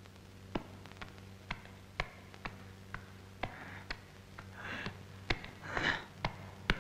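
Light ticking taps, about two a second, as cartoon walking sound effects, joined in the second half by breathy puffs of an animal's heavy breathing.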